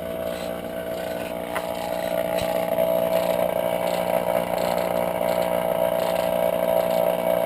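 A steady motor drone that grows louder over the first few seconds and then holds, with a single sharp click about a second and a half in.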